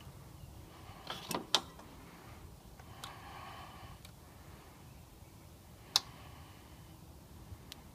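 A few sharp clicks and light handling noises from hand tools and wire during a furnace wiring splice: a cluster about a second and a half in, a single loud click about six seconds in, and smaller ones between.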